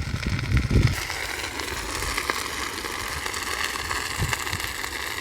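Dry cattails burning close by: a steady crackling hiss with scattered small pops. A low rumble is heard for about the first second.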